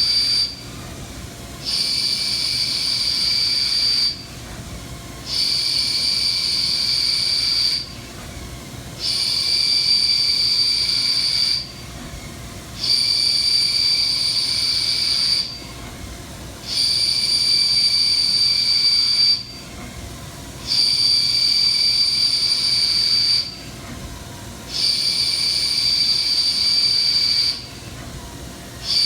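Milling machine cutter cutting a motorcycle brake hat with a high-pitched, steady squeal. It runs in repeated passes of about two and a half seconds each, separated by roughly one-second pauses, about every four seconds.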